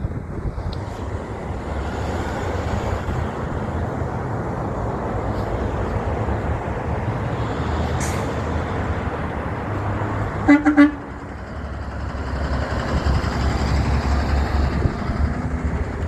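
Heavy trucks passing with steady engine and road noise. About ten and a half seconds in, a truck horn gives two short toots. There is a brief hiss about eight seconds in.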